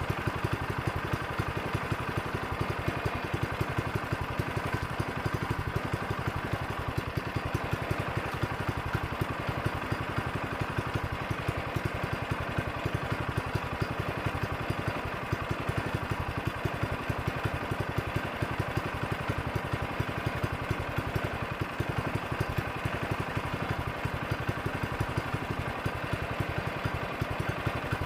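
Portable sawmill's small petrol engine running steadily, with a fast, even firing pulse.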